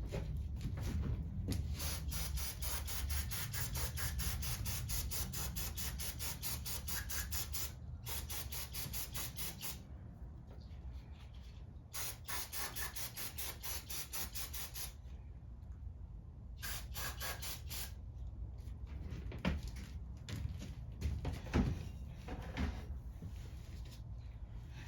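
Ratchet wrench clicking in fast, even runs of several seconds while turning bolts on a Honda HRR216 mower's carburetor and air box, with a few separate knocks of metal parts near the end.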